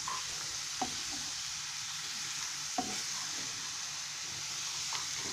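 Grated beetroot and onion frying in butter in a pan, a steady sizzle. Three brief light clicks of a utensil come as the mixture is stirred.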